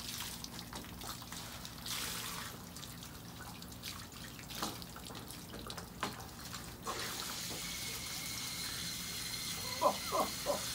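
Water sloshing and splashing as a crate of freshly cut bay laurel leaves is worked in a tub of water to wash them. About seven seconds in, a steady hiss of water spraying from a garden hose nozzle starts and keeps running.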